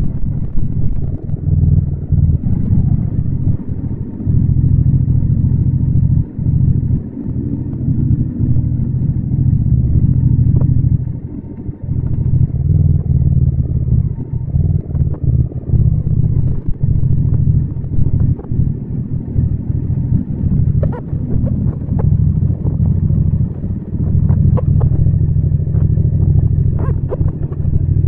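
Yamaha MT-07's 689 cc parallel-twin engine running under way, its low note holding with frequent brief dips in level, the longest about twelve seconds in.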